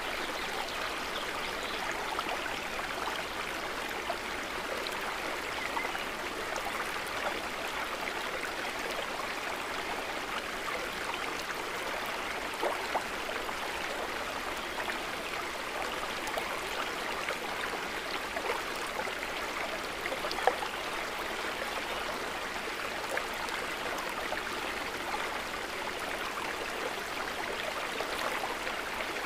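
Steady gentle trickling and burbling of lake water, peppered with small droplet splashes and a couple of slightly sharper splashes partway through.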